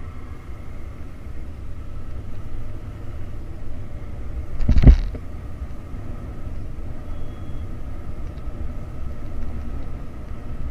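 Motorcycle riding on a wet road, heard from an on-board action camera: a steady low rumble of engine, tyres and wind, with faint steady whine tones above it. About five seconds in there is one short loud thump.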